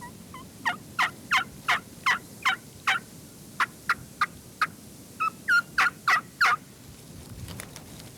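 Turkey yelping: about fifteen sharp, falling yelp notes at roughly three a second, in three runs with short pauses between them.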